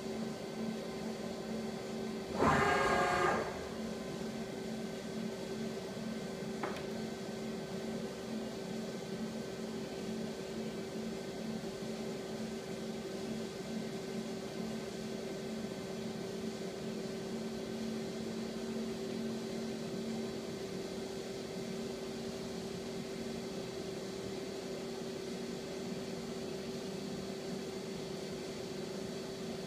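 Daewoo Puma 12L-B CNC lathe running idle with a steady machine hum. About two and a half seconds in there is a brief louder whir lasting about a second, as the turret moves.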